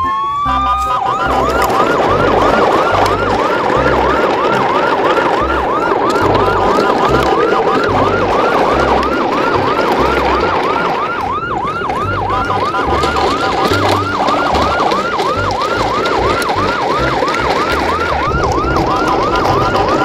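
Electronic siren in a fast yelp, a rising wail repeating about two or three times a second, over a steady rushing noise.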